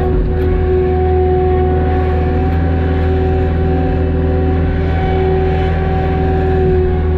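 A vehicle engine running steadily at a constant speed: a low drone with a steady whine on top.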